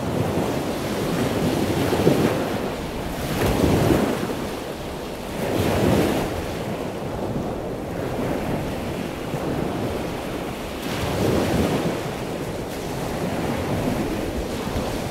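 Surging water noise, a rushing hiss that swells and fades every two seconds or so.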